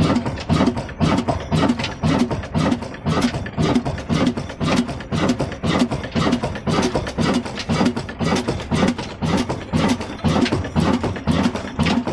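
Ruston Hornsby-type stationary diesel engine, built by Union Engineering Works of Daska, running with a slow, even beat of about two and a half pulses a second and sharp ticks between the beats.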